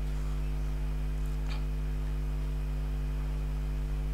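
Steady electrical mains hum, a low buzz made of several fixed tones, picked up in the recording; a faint click about one and a half seconds in.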